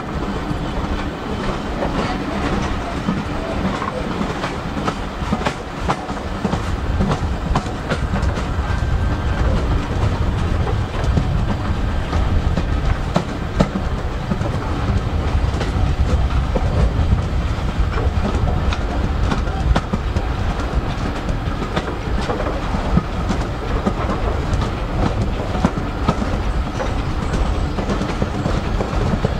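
Railway carriages running along the track at speed: a steady rumble with the wheels clicking over the rail joints.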